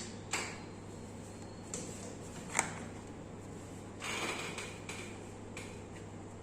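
Hands working on a person's skin during a massage: a brushing rub and a few sharp clicks, the sharpest about two and a half seconds in, over a steady low hum.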